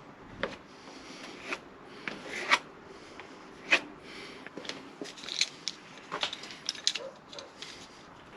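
A hand tool scraping and clicking against freshly applied fibreglass filler on a wooden door frame repair, in irregular short strokes with two sharper clicks a few seconds in.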